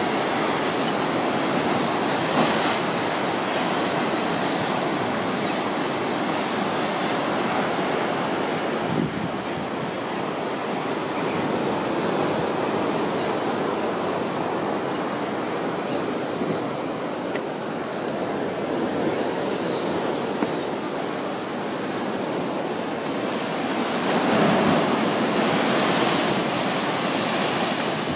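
Rough sea surf breaking on a rocky coast: a steady rush of waves that swells louder near the end.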